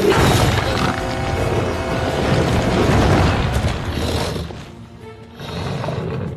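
Dramatic film-score music that opens with a sudden heavy boom, staying loud and dense for about four seconds before easing off and swelling again briefly near the end.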